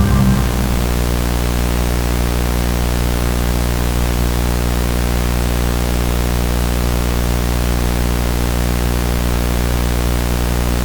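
Loud, steady broadcast-style static hiss with a low buzzing hum under it, holding without change.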